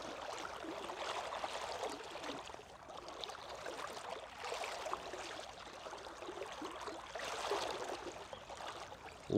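Water sloshing and trickling, swelling and easing every two to three seconds.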